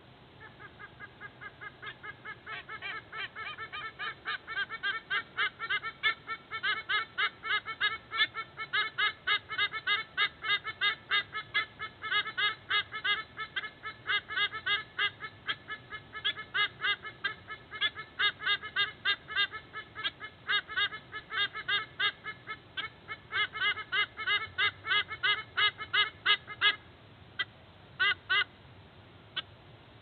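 White-bellied sea eagle honking: a long, rapid run of repeated calls, about four a second, growing louder over the first several seconds. It stops near the end, followed by a few scattered calls.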